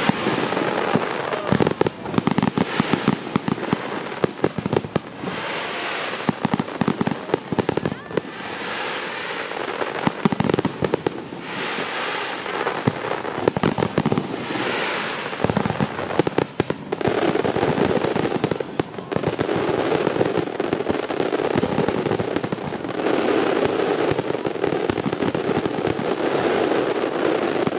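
Fireworks going off: rapid volleys of sharp cracks and bangs in bursts, running together into a dense, continuous crackle from about halfway through.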